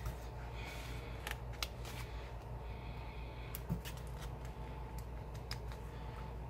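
Light rustling of a paper sticker sheet and scattered small clicks as metal tweezers pick stickers off and press them onto a planner page, over a steady low hum.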